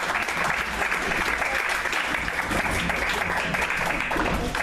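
Theater audience applauding, dense clapping that eases off near the end.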